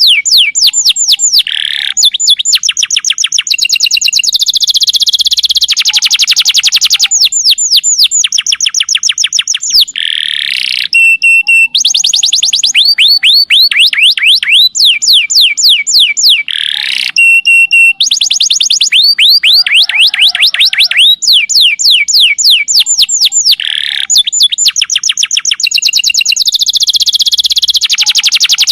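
Domestic canary singing a long unbroken song of rapid rolling trills: fast runs of repeated high notes that change from one trill type to the next every second or two, loud throughout.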